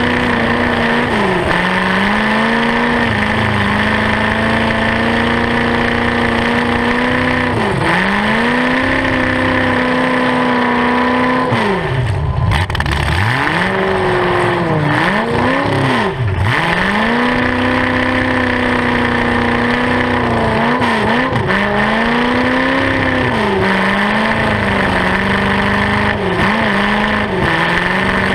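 Open-header V8 of a demolition derby car, straight pipes sticking up through the hood, running loud and revving up and down over and over as the car drives and spins its tires. The revs drop sharply a few times around the middle before climbing again.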